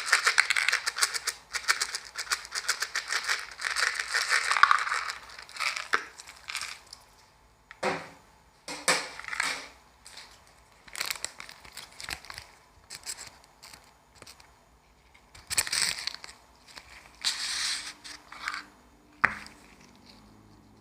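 Metal spatulas on an ice cream roll cold pan: rapid tapping and scraping for about the first six seconds, then separate scrapes every second or so as the frozen ice cream is worked.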